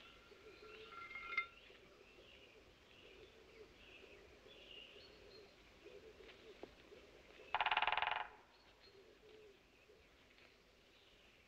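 A woodpecker drums once in a short rapid burst about two-thirds of the way through, the loudest sound here. Faint birdsong runs underneath, and there is one sharp click early on.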